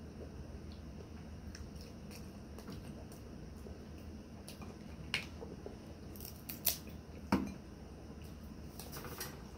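King crab leg shells cracking and snapping as they are broken apart by hand, with three sharp cracks in the second half among smaller clicks.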